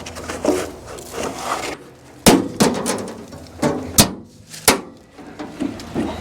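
Sawdust and debris being cleared out of a Wood-Mizer LX25 sawmill by hand: soft scraping and rustling, with five sharp knocks in the second half, two of them louder than the rest.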